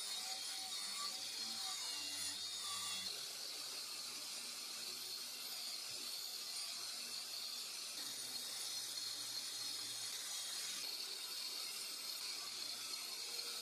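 Angle grinder with a wire cup brush scrubbing rust off a steel rectangular tube: a steady, even hiss of spinning wire on metal.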